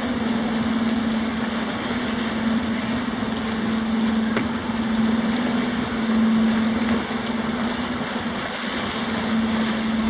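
The Great Lakes freighter American Century passing close: a steady low hum from the ship, swelling and easing slightly, over the rush of water churning along its hull and wind on the microphone.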